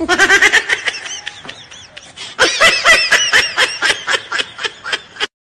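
A person laughing hard in quick, high-pitched ha-ha's, in two runs with the second one louder, cut off abruptly near the end.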